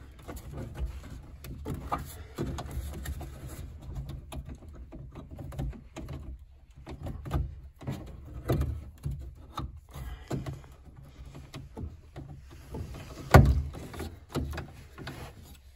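Hands working the cables and plastic clips on a Honda Odyssey power sliding door's latch assembly inside the door: scattered clicks, rattles and light knocks of plastic and metal, with one sharp knock about two seconds before the end.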